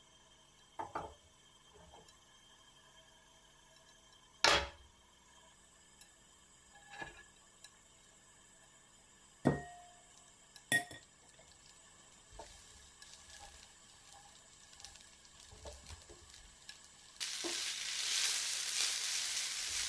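A few sharp knocks and clinks of cookware, then, about three seconds before the end, a loud steady sizzle sets in as yakisoba noodles fry in hot oil in a frying pan.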